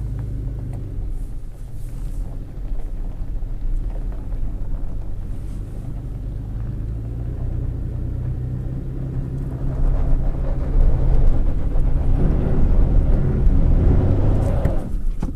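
2016 Toyota Tacoma TRD Sport's engine running under load as the truck creeps up a dirt hill in two-wheel drive with its automatic limited-slip on. About ten seconds in it grows louder and rougher as the rear wheels spin on the loose surface, without getting the truck over the crest.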